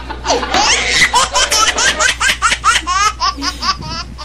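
Hearty laughter in a rapid run of short 'ha-ha' bursts, about five a second, over a faint steady low hum.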